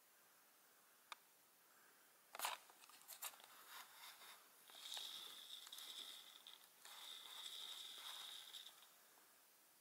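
Near silence: faint room tone with a few soft clicks, and in the second half a faint high steady whine in two stretches of about two seconds each.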